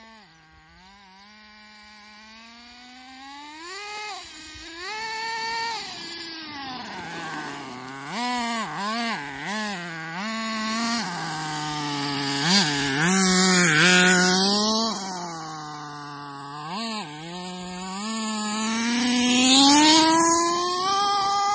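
HPI truggy's 4.6 cc nitro engine revving up and down as the RC car drives, its high buzzing pitch rising and falling with the throttle. It grows louder as the car comes near, loudest at about twenty seconds.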